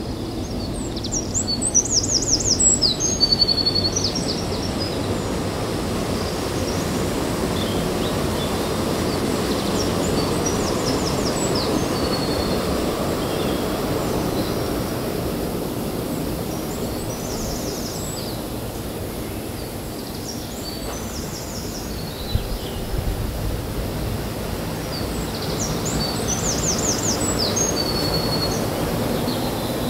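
A songbird sings a short, high-pitched phrase of quick notes about five times, every five or six seconds, over a steady low outdoor rumble. One sharp knock comes about two-thirds of the way through.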